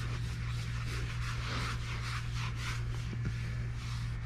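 Cheesecloth pad rubbed in fast, small circles over a lithographic stone, buffing the gum arabic layer down to a thin dry film after the first etch: a soft, repeated rubbing hiss, the cloth moving freely without catching. A steady low hum runs underneath.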